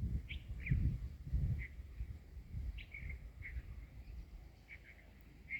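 Small birds chirping: short high calls repeated at irregular intervals, over a low rumble that is strongest in the first second and a half.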